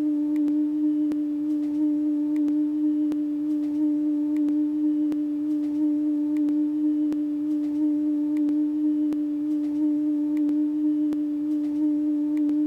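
A steady, pure drone tone with a couple of faint higher overtones, ticked through by faint clicks about three times every two seconds.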